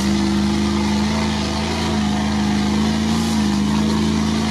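Off-road truck's engine running at a steady pitch under load while it wades through deep water, with the rush of churned water around it.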